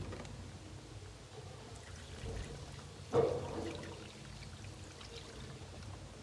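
Water pouring, with a single knock about three seconds in.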